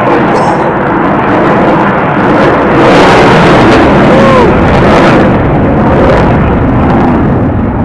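Aircraft flying past, a loud continuous roar that is strongest about three seconds in.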